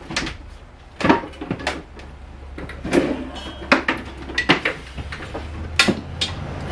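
Irregular sharp clicks and light clatter of small hard parts and tools being handled while working on an engine's ignition wiring, a dozen or so over a few seconds, over a steady low hum.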